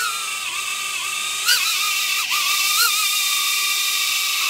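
BETAFPV Cetus Pro micro drone hovering: a steady high whine from its small brushless motors and guarded propellers, wavering in pitch as the throttle is eased up and down, with a sharp brief rise in pitch and loudness about a second and a half in.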